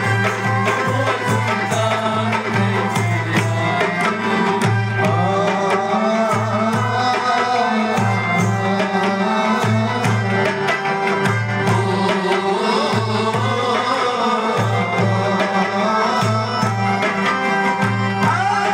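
Live Kashmiri folk music: a hand drum beats a steady rhythm under a wavering melody, with a woman singing into a microphone near the end.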